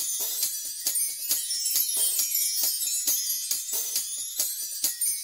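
Instrumental background music with a steady beat of about two strokes a second and bright, high percussion; no singing.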